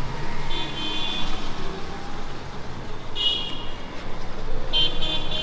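Steady road traffic noise from a busy street, with three short high-pitched tones: one about half a second in, one about three seconds in and one near the end.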